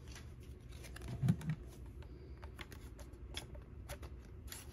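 Faint, scattered light clicks and rustles of hands handling collectible cards and a plastic toy transformation device.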